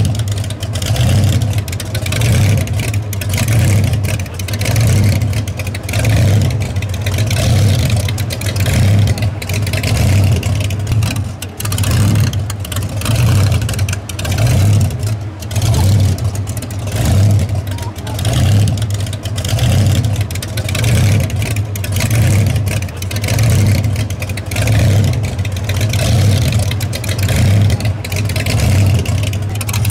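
Blown 331 cubic-inch Hemi V8, topped by a Weiand 6-71 supercharger and twin Holley carburetors, idling with a low rumble that swells and fades about once a second.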